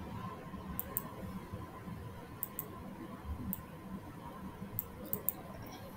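Computer mouse clicking about eight times, several clicks in quick pairs, over a faint steady hum.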